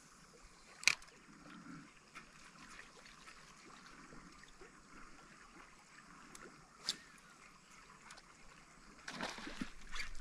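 Faint trickling and lapping of river water, with two sharp clicks, about a second in and about seven seconds in.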